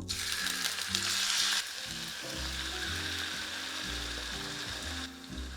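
Food sizzling in hot oil in a frying pan. It starts suddenly, is loudest for the first second and a half, then runs steadily and fades sharply about five seconds in.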